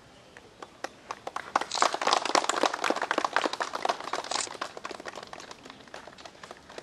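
A group of people clapping, swelling to a peak about two seconds in and dying away over the next few seconds.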